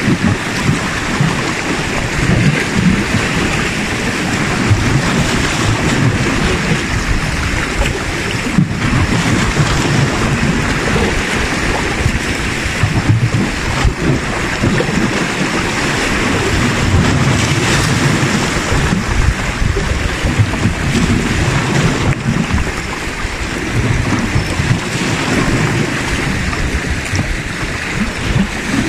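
Sea waves washing against shoreline rocks, under a heavy, gusty rumble of wind on the microphone.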